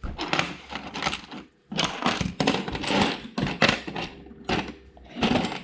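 Plastic Lego bricks clattering and clicking as they are handled and rummaged through, a rapid irregular run of small hard knocks.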